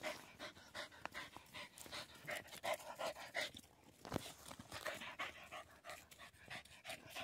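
Dog panting hard and quickly in an even rhythm, close by and faint, winded after running down a hare.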